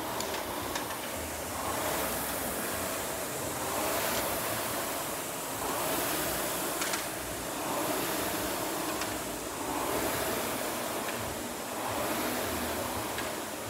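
Fan flywheel of an air-resistance rowing machine spinning, its rush of air swelling with each hard pull at about one stroke every two seconds, with a few faint clicks from the machine.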